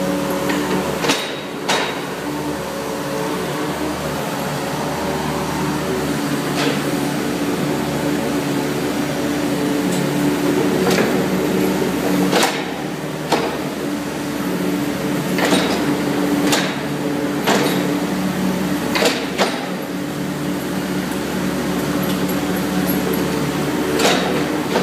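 Hitachi mini excavator's diesel engine running steadily with its hydraulics working, broken by a dozen or so sharp knocks scattered through.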